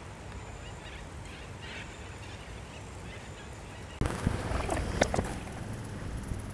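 A few faint bird calls over a steady low rush of outdoor noise by flooded riverbanks. About four seconds in the sound cuts abruptly to a louder rumble with sharp clicks and knocks.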